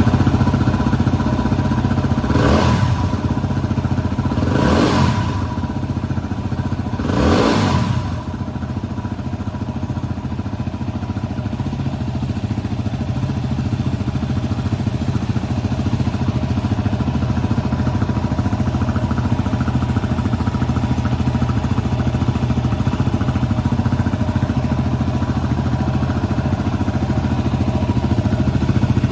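Yamaha WR250X's 250 cc single-cylinder four-stroke engine breathing through an aftermarket FMF silencer and SP Tadao header pipe, just after starting: three quick throttle blips in the first eight seconds or so, then a steady idle.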